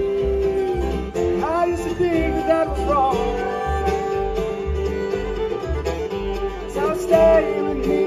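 Bluegrass band playing live, with banjo, fiddle, acoustic guitars and upright bass; a bending melody line rides over a steady pulsing bass.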